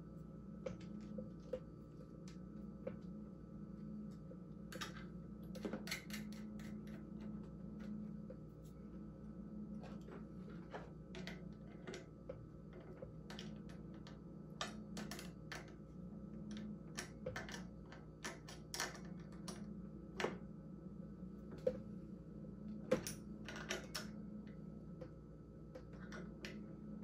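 Irregular small metallic clicks and taps of a screwdriver and small wrench working the brake-cable nut at an electric scooter's front brake, a few of them sharper knocks, over a steady low hum.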